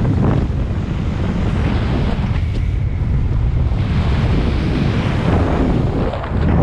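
Strong wind rush buffeting the camera microphone during fast speedflying flight under a speed wing. It eases briefly about a third of the way in and picks up again.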